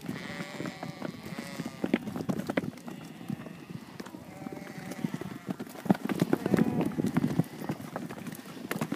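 A flock of sheep, ewes and lambs, clattering through a wooden chute: a dense, uneven patter of hooves on dirt and knocks against the boards, with a few short calls over it.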